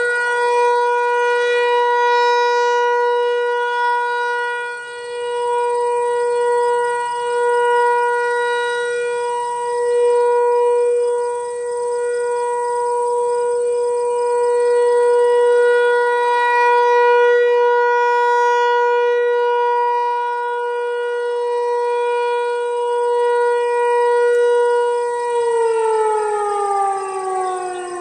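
ASC T-128 outdoor warning siren heard from a distance, sounding a steady alert tone whose loudness swells and fades every few seconds as the siren rotates. About 25 seconds in it starts winding down, its pitch falling steadily.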